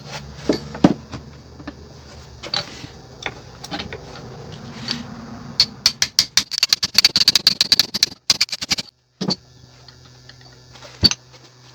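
Metal-on-metal hammer taps knocking the spider-gear pin out of a Mercedes W123 rear differential carrier. Scattered single taps come first, then a quick run of many taps about halfway through and a couple of single knocks near the end. The pin slides out easily, which is put down to heavy wear on it.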